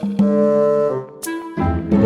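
Music with brass-like notes that change every half second or so, broken by a few sharp clicks and a short gap about halfway through.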